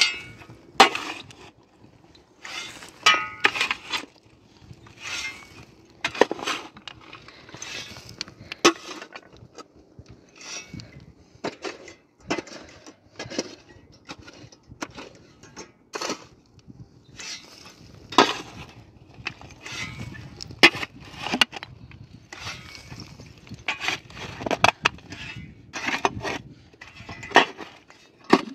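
Long-handled shovel digging into stony soil: the blade strikes and scrapes through earth and rock about once a second, with loose stones and soil rattling off it.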